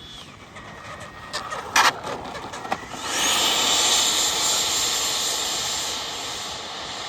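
Electric ducted fan of a Freewing J-10 90mm 8S RC jet: a high whine that drops in pitch, then a few sharp knocks, the loudest about two seconds in, typical of touchdown on landing. About three seconds in, the fan spools up to a loud rushing whine whose pitch rises and then holds steady, easing off slightly toward the end.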